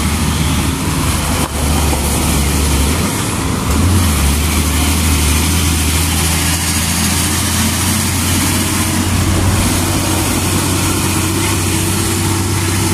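Diesel engine of a loaded Hino 500 tandem-axle dump truck, a steady low drone with tyre noise as the truck drives past close by.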